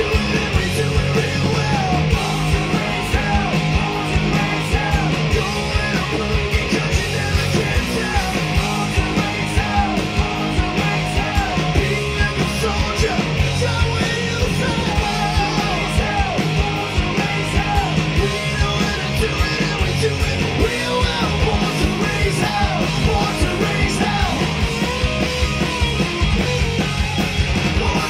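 Live rock band playing at full volume: distorted electric guitars, bass and drums under a sung lead vocal.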